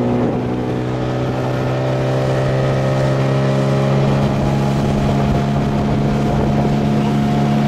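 Outboard motor pushing an inflatable boat along at steady cruising speed: an even, unbroken engine drone.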